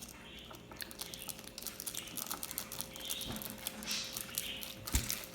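Soft crinkling and light pattering, slime powder and glitter poured from a packet into a plastic shaker cup.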